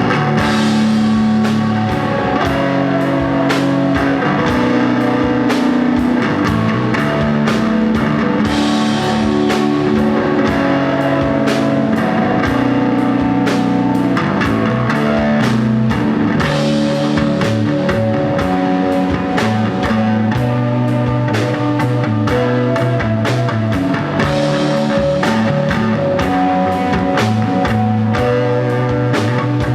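Rock band playing live: electric guitar and drum kit over sustained low bass notes, with a steady beat.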